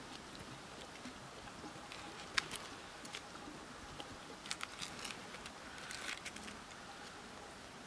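Logs being laid onto a stack between wooden stakes: a few light, scattered wood-on-wood knocks and clicks, faint.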